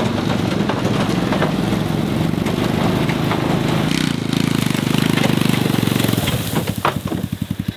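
Small engine of a kids' mini Jeep running as it drives over grass towing a trailer, settling into a slower, pulsing beat near the end as it throttles back.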